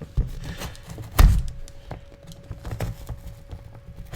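Thumps, knocks and clicks of a shipping package being handled and worked open, with one heavier thud about a second in.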